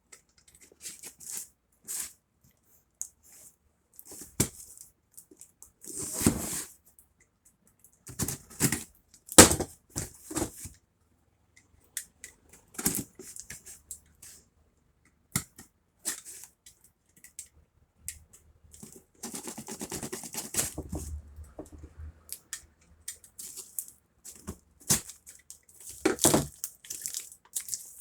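Packaging being handled and opened: irregular rustling, crinkling and tearing, with sharp clicks and knocks between stretches of quiet.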